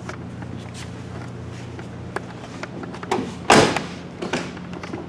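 1998 Chevy GMT-400 pickup door swung on its freshly lubricated hinges, with light clicks and knocks and one loud thud about three and a half seconds in as it shuts; the hinge no longer squeaks or clacks.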